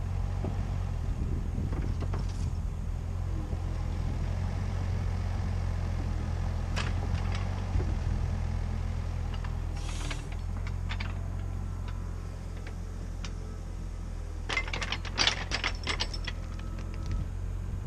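CAT 304CR mini excavator's diesel engine running steadily under work. A few knocks about 7 and 10 seconds in, then a quick run of clanks and knocks near the end as the bucket comes down onto a log.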